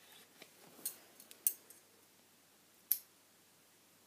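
Product packaging being handled and opened by hand: light rustling with three sharp clicks, about one, one and a half and three seconds in.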